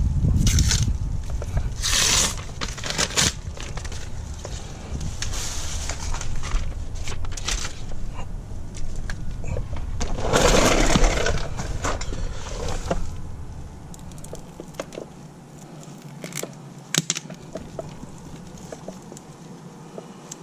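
Aluminium-foil peel-and-seal roofing tape being handled and unwrapped: irregular bursts of crinkling and rustling, the longest lasting a couple of seconds just past the middle, then only scattered light clicks.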